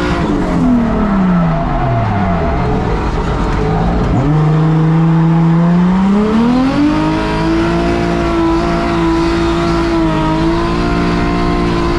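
Car engine with a bad misfire running at changing speed: its pitch falls for about three seconds, jumps up at about four seconds, climbs again, then holds steady.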